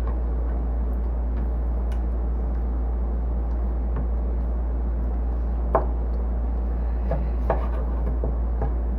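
Kitchen knife cutting vegetables on a cutting board: a few sharp knocks in the second half, over a steady low hum.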